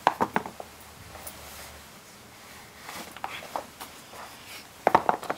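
Air Jordan 13 sneakers stepping and shifting on a wooden parquet floor: a quick cluster of taps and scuffs at the start and another about five seconds in, with a few lighter taps in between.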